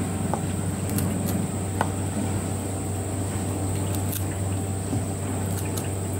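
Hands pulling apart a torch ginger fruit head, with a few faint clicks and squishes as the pods are pried off. Underneath runs a steady low hum with a thin high whine.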